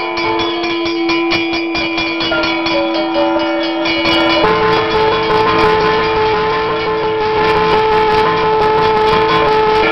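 Brass temple hand bell rung rapidly during the puja, its strokes coming about six or seven a second. Under it, long held horn-like notes of temple music step from one pitch to another. About four seconds in, the sound thickens into a denser, louder mix.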